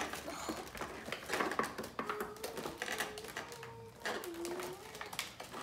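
Irregular light clicks and taps of small plastic slime pots and charms being picked up and set down on a tabletop.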